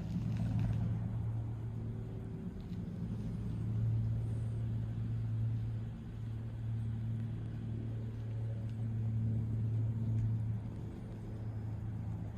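An engine running steadily with a low hum that swells and eases a little, with a brief rustle at the start.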